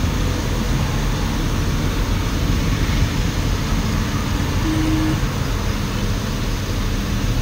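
Truck's diesel engine running steadily with road noise, heard from inside the cab. A short, faint tone sounds about five seconds in.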